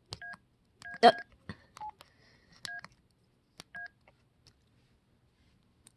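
Cell phone keypad being pressed: about five key presses over four seconds, each with a light click and a short two-tone keypad beep.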